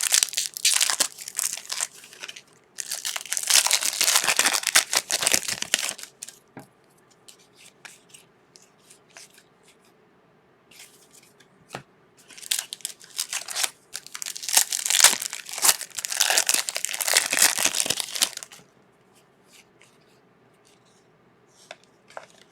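Trading card pack wrappers being torn open and crinkled in about four loud bursts, with light clicks of card handling in between.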